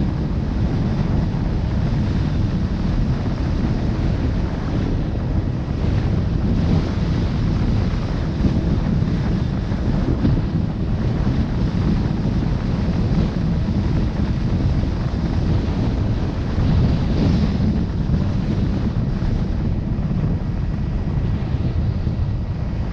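Wind buffeting the microphone of a camera moving along a road: a steady, rough low rumble that flutters in strength.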